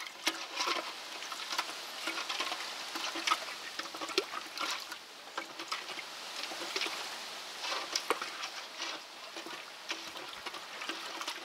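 A length of pipe stirring bitumen lumps in a bucket of petrol, the liquid sloshing with many small irregular clicks, as the bitumen is being dissolved into a mix for tarring nets.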